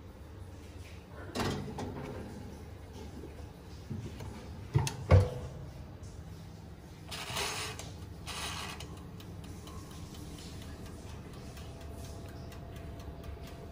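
Kitchen handling noises: a knock, then two sharp knocks about five seconds in, which are the loudest sounds, followed by a scraping or rustling stretch. A faint steady tone comes in near the end.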